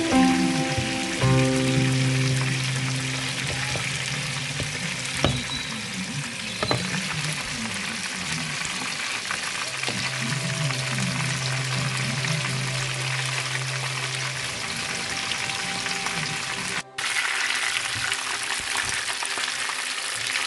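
Pieces of red fish deep-frying in hot oil in a pan, with a steady, busy sizzle and crackle of bubbling oil. The sizzle breaks off for an instant about three-quarters of the way through.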